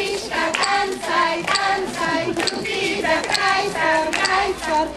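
Group of children singing a folk song together, accompanied by steady rhythmic hand-clapping of about two claps a second.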